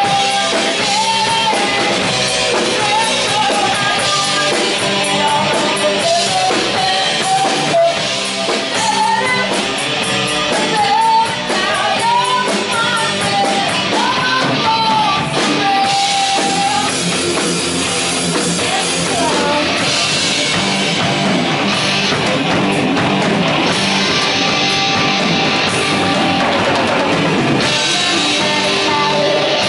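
Live rock band playing: a woman singing into a microphone over electric guitars and a drum kit. The singing stands out most in the first half, and the guitars and drums carry on without a break.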